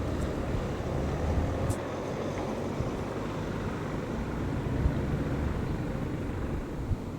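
Wind buffeting the microphone outdoors: a steady low rumble and hiss, with no bell sounding.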